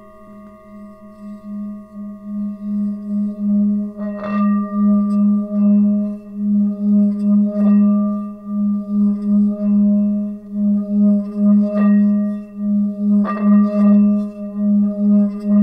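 Large Himalayan singing bowl being played around the rim. Its low hum swells over the first few seconds and then holds, wavering in even pulses, with a few light knocks of contact along the way.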